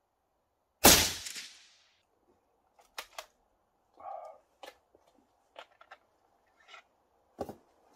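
A single shot from a scoped bolt-action hunting rifle about a second in, echoing for about a second. It is followed by a series of light metallic clicks and knocks as the rifle is handled on the bench.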